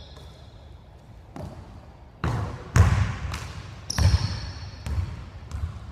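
Basketball dribbled on a hardwood gym floor: about seven uneven bounces, the loudest near the middle, with a brief high squeak about four seconds in.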